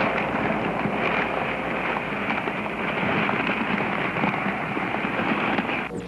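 A big open fire burning, with dense, steady crackling and popping.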